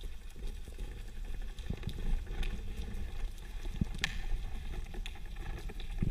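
Underwater ambience recorded through a camera housing during a spearfishing dive: a steady low rumble with scattered faint clicks and crackles, and one sharper click about four seconds in.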